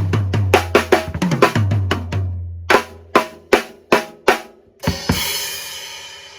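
Drum kit with a second-hand cymbal set being played: a quick fill of drum strokes over low drum tones, then five separate hits, then a cymbal crash about five seconds in that rings on and slowly fades.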